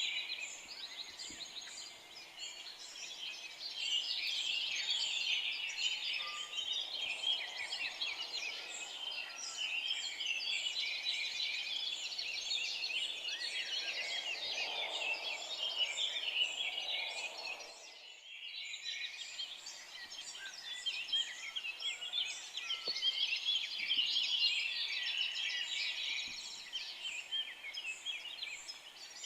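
A dense chorus of many forest birds singing at once: overlapping high chirps, trills and whistles. The chorus briefly drops away about two-thirds of the way through, then picks up again.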